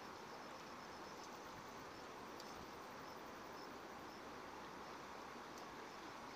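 Faint, steady outdoor hiss with a faint, high insect chirring, strongest early on, and a few soft ticks.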